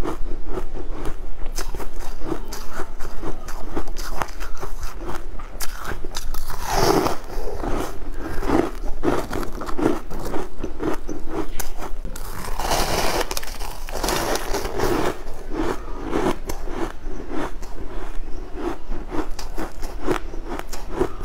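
Crunching and biting of chunks of frozen purple crushed ice, close to the microphone: a dense run of crisp crackles and cracks, with two louder, hissier stretches of crunching about seven seconds in and again around thirteen to fifteen seconds.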